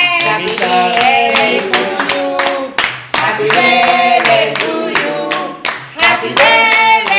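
A small group of people singing a birthday song together and clapping along in time.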